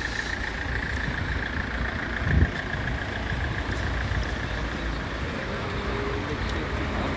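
Road traffic on a wet city street: a steady low rumble and tyre noise from passing vehicles, with one sharp thump about two and a half seconds in. A thin high tone runs above it and fades out about five seconds in.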